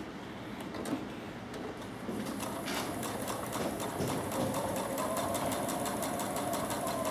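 Electric sewing machine stitching binding onto a quilt edge. It speeds up about two seconds in, with a fast, even patter of needle strokes, and a motor whine rises and then holds steady through the second half.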